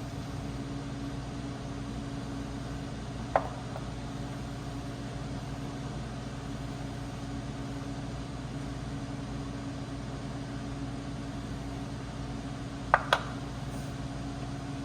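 A steady low mechanical hum with a few short, sharp clicks: one a few seconds in, and two close together near the end.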